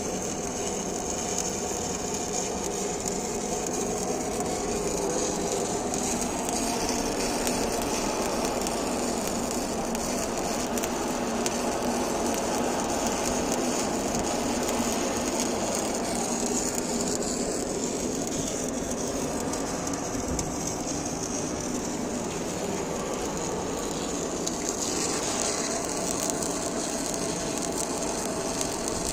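Electric arc welding on ductwork: a steady crackling sizzle over a continuous machinery hum.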